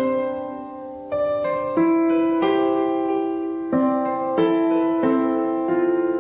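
Background music: a slow solo piano piece, notes struck one after another and left to ring.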